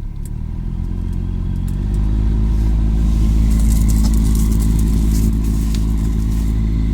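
Lada Priora heater blower fan spinning up over about two seconds, then running with a loud steady drone, like an airplane, with a rustling hiss in the middle. The owner suspects a napkin or scrap of paper from the glovebox was sucked into the fan through the open recirculation flap.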